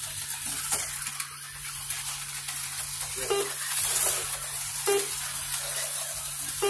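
HO-scale slot cars running on the track: a steady, hissing whir of the small electric motors and pickup shoes on the rails, with a low steady hum underneath and a few short louder blips.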